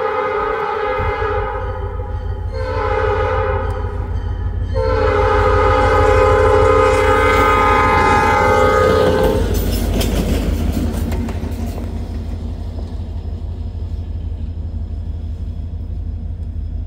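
Escanaba & Lake Superior locomotive 501's air horn blowing for a road crossing: the end of one blast, a second blast of about two seconds, then a long blast of about five seconds as the locomotive reaches the crossing. After the horn stops, the diesel locomotive keeps rumbling low as it rolls past over the rails.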